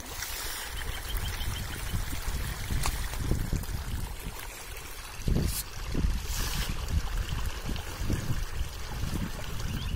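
A crowd of pangas catfish and tilapia splashing and churning the water at the pond surface as they feed, in irregular swells with a few sharper splashes.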